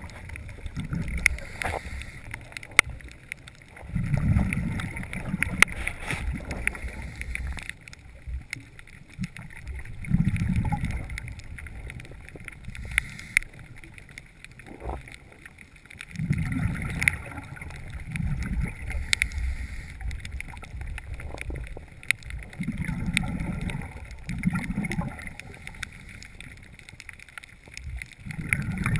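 Scuba diver's exhaled breath bubbling out of the regulator underwater, a low bubbling rush every five or six seconds, with faint scattered clicks in between.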